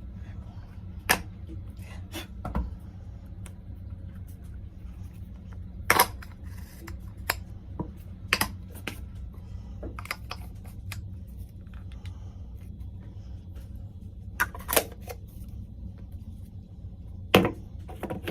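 Parts of a Moocoo portable espresso machine being handled: about a dozen sharp clicks and knocks, scattered and irregular, over a steady low hum.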